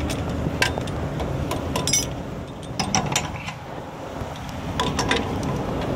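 Irregular metal clicks and clanks of tow gear being fitted around a car's wheel, over a low steady rumble.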